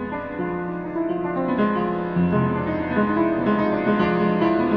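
Keyboard playing a series of sustained notes one after another, held notes ringing under each new one.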